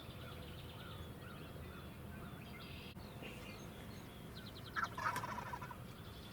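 Wild turkey tom gobbling once, a little under five seconds in: a single rapid, rattling gobble.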